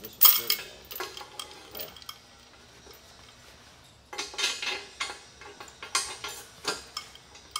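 Steel lifting chain and hook clinking and clanking against a rusty steel lifting bar as they are handled and rigged by hand. A sharp clank comes right at the start and a few clinks follow; after a short lull, a run of clinks fills the last few seconds.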